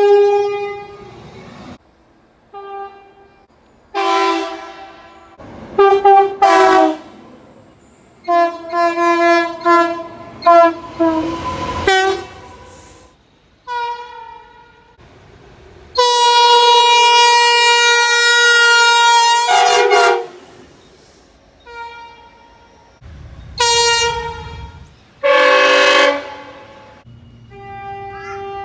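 A string of locomotive horn blasts, short and long, about ten in all, sounded by several different horns one after another at different pitches. The longest is a steady blast of about four seconds just past halfway.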